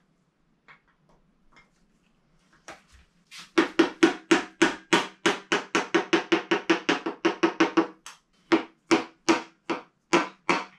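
Hammer tapping a 1.8T piston down into a cylinder of an EA827 engine block, a long run of quick, evenly spaced, slightly ringing taps at about five a second that starts about three and a half seconds in. The taps slow to two or three a second near the end.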